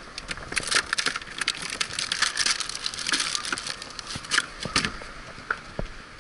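A hand rummaging through ice and plastic bags in a cooler, making a rapid crunching and crinkling that starts about half a second in and stops at about five seconds.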